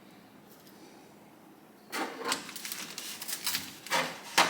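Quick metallic clicking and rattling from the loose starter clutch of a Kawasaki KZ1000 engine, turned by hand. It begins about two seconds in and ends with a sharper click.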